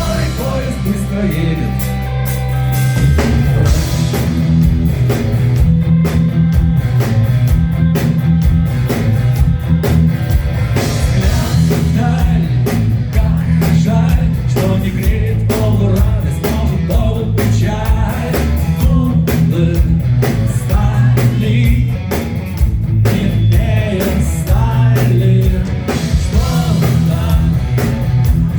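Rock band playing live: drum kit and guitars with a singing voice.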